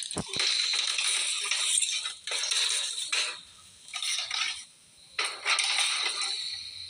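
Cutlery scraping and clinking on a plate in several bursts of about a second each, with short pauses between them.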